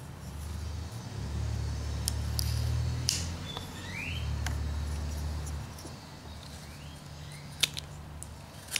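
A whittling knife cutting into a small wooden carving in sharp clicks, the strongest two near the end. Underneath, a low rumble swells and fades over the first five seconds or so, and two short rising chirps come through.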